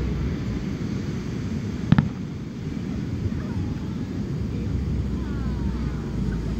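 Aerial fireworks display: one sharp shell burst bang about two seconds in, over steady low background noise.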